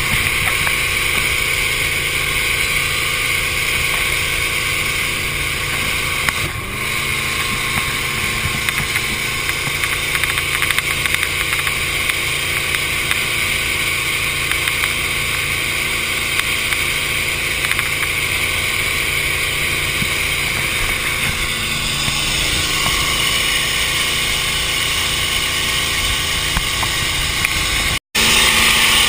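Inboard engine of an Eliminator Daytona speedboat running steadily underway, with wind and water rushing past. The engine note shifts briefly about six seconds in and again about three-quarters of the way through. The sound drops out for an instant near the end.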